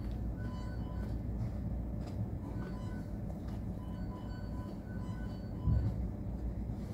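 Soft background music of short repeated notes over a steady low rumble, with a single low thump near the end.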